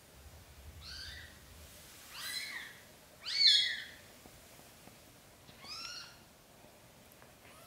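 Newborn kitten mewing: four short, high-pitched cries, each rising and falling. The third cry is the loudest.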